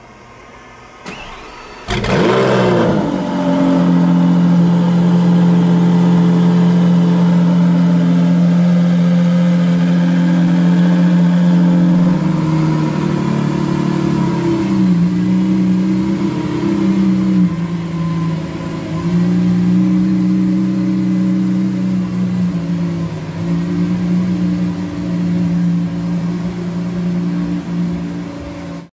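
Lamborghini Sián's naturally aspirated V12 starting with a sudden loud flare about two seconds in, after a small click, then running at a high, steady idle. After about twelve seconds the idle settles lower and wavers unevenly.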